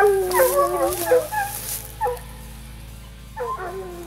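Hunting hounds baying on a leopard's track, giving tongue on the scent they have just been put onto. Long, drawn-out bawls overlap at the start, a short cry comes about two seconds in, and another long bawl starts near the end.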